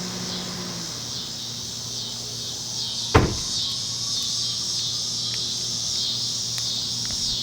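A steady high chorus of insects chirping over a low steady hum, with one sharp click about three seconds in.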